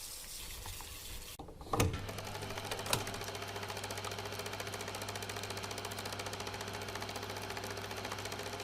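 A fast, even mechanical rattle over a steady low hum, starting about two seconds in after a sharp knock, with a click about a second later.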